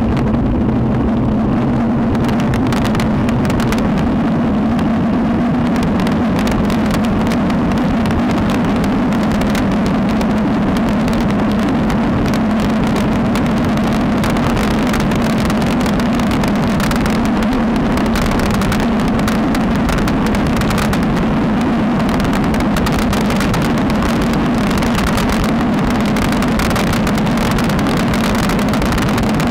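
Steady wind rush on the microphone of a bike-mounted action camera, mixed with the rolling noise of road-bike tyres on asphalt, with a constant low hum underneath.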